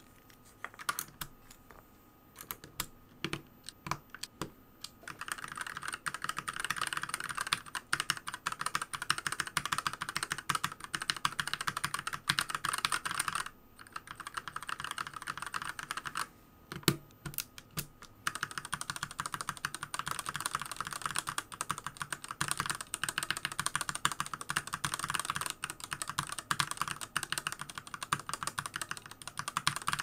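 Mechanical keyboard being typed on in fast runs of keystrokes. It starts with a few separate clicks in the first seconds and breaks off briefly twice past the middle.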